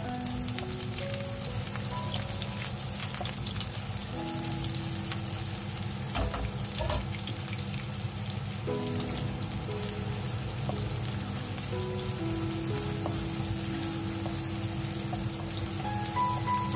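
Chopped onion, garlic and ginger sizzling in hot oil in a pan: a steady fine crackle. Soft background music of long held notes plays over it.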